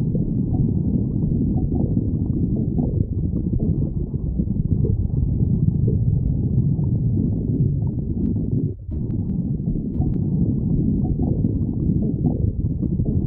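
A person's stomach growling: a continuous, muffled low rumble with small gurgles, dropping out briefly about nine seconds in.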